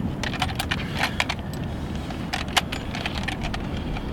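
Scattered light clicks and rattles of fishing gear being handled while a weighing sling and scales are readied for a ray, over a steady low background rumble.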